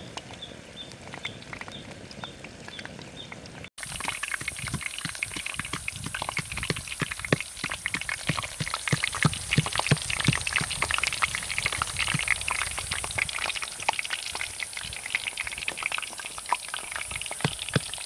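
Hot oil sizzling and crackling around whole small birds deep-frying in a clay pot, a dense run of small pops over a steady hiss. It sets in suddenly about four seconds in, after a quieter stretch with faint regular chirps about three a second.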